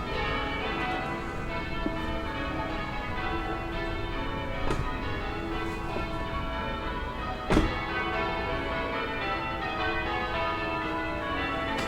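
Distant church bells ringing a continuous peal, their overlapping strokes blending together over town background noise. A single sharp knock about two-thirds of the way through stands out as the loudest sound.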